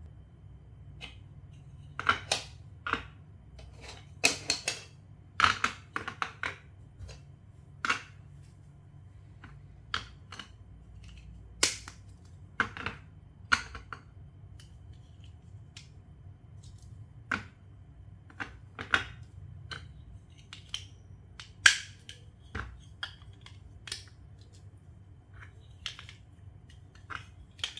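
Plastic LEGO Duplo bricks being handled and snapped together: a long run of sharp, irregular clicks and snaps, a couple of dozen in all, starting a couple of seconds in. A faint low hum runs underneath.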